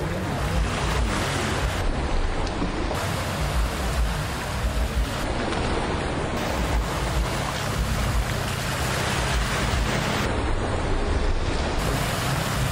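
Racing jet skis droning at speed over open sea, a steady engine hum under a wash of spray and surf, with wind buffeting the microphone.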